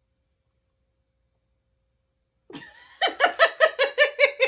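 Complete silence for about two and a half seconds, then a woman laughs: a quick, even run of about seven 'ha's a second through the last second and a half.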